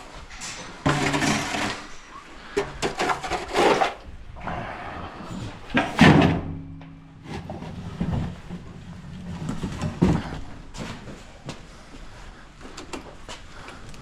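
A broom sweeping the coop floor: uneven brushing and scraping strokes mixed with a few wooden knocks and bumps.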